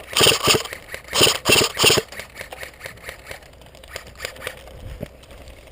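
Airsoft M4 electric rifle firing about four quick bursts in the first two seconds, each a rapid buzzing rattle of shots, then falling quiet with a few faint clicks.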